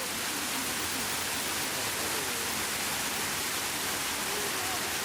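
Steady rushing noise of a tall waterfall, an even wash of falling water that does not let up.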